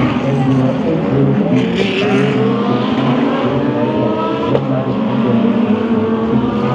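Several DTM GT3 race cars running together on track at speed. Their engines overlap, with pitches sliding up and down as they rev and pass.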